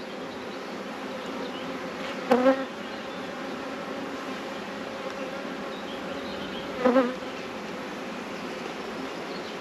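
Honeybees buzzing steadily around an opened hive, a dense colony hum, with two brief louder swells about two seconds in and about seven seconds in.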